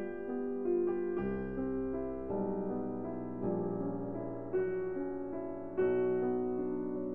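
Background piano music: a slow, gentle piece of sustained notes and chords, with a new note or chord every second or so.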